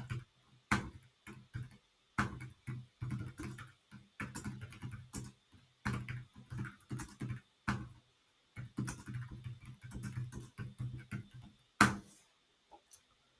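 Typing on a computer keyboard: runs of irregular key clicks, with one louder keystroke about twelve seconds in as the typed prompt is sent.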